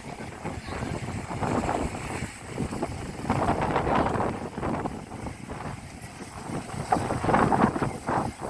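Sea waves washing on the shore, with wind buffeting the microphone in irregular gusts.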